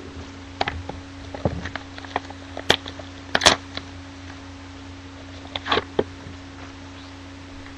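Cardboard trading-card box being handled and opened: scattered short clicks and scrapes, the loudest about three and a half seconds in, over a steady electrical hum.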